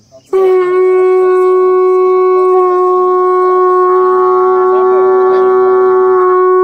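Brass-mounted conch shell blown in one long, loud, steady note that starts a moment in and is held unbroken.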